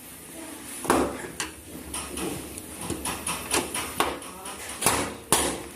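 Irregular knocks and clicks of hands working at a washing machine, with the loudest knocks about a second in and twice near the end.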